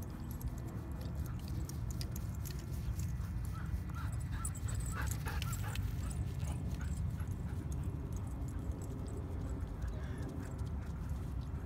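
A dog whining and yipping in a cluster of short high calls midway through, over a steady low rumble.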